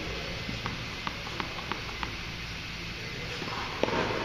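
Tennis ball bounced on an indoor hard court before a serve: five short taps about three a second, over a steady low hum. A louder knock near the end.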